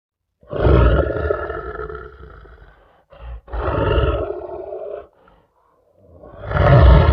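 Deep monster roars and growls, Sweetums sound effects: a long roar about half a second in that fades over two seconds, a short grunt, a second roar, and a third that swells near the end.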